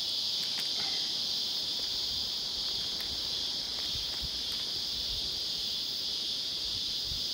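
Steady high-pitched insect chorus, an unbroken buzz, with a few faint soft handling sounds as a nylon stocking is pulled over a broom head.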